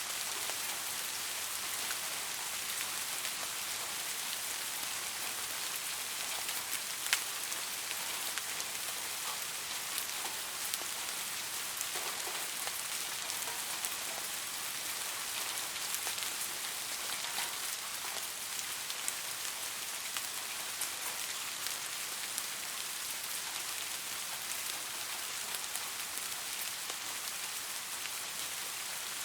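Steady rain falling on a surface, a continuous hiss with many scattered drop ticks and an occasional louder single drop.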